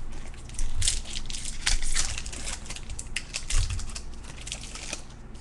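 Baseball trading cards being handled and flipped through: a quick run of crisp clicks and crinkles that thins out near the end.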